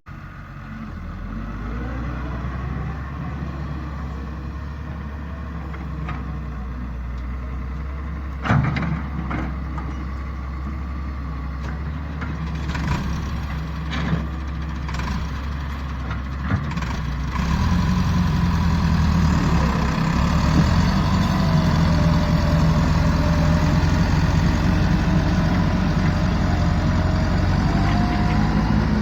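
Heavy diesel machinery engine running steadily, getting louder from about two-thirds in, with a few sharp knocks before that.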